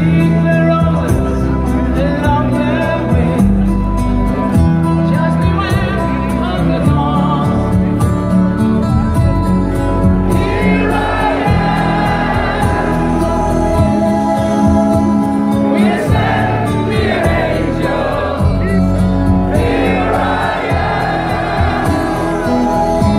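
Rock band playing a slow power ballad live through the stadium PA, a male lead vocal over sustained guitar and keyboard chords, with the crowd singing along. Heard through a phone's microphone in the audience.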